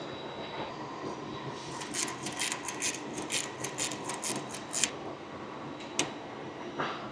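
Lock wire being worked with safety-wire pliers at the CFM56-5B engine's oil filter housing: a run of quick metallic clicks, about five a second, for some three seconds, then a single sharp click, over a steady hangar hum.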